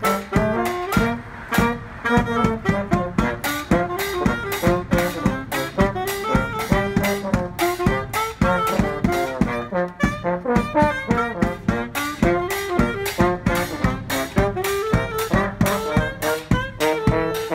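A small street band playing a lively tune: saxophone and a low brass horn carrying the melody over a bass drum and cymbal keeping a steady beat.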